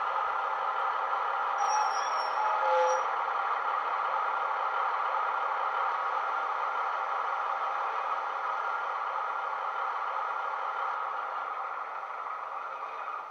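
A Class 150 Sprinter DMU's diesel engine and running sound, played by a Legomanbiffo DCC sound decoder through the small speaker of a Bachmann model, running steadily as the unit comes to a stand, with a few short squealing tones about two seconds in. The sound fades near the end.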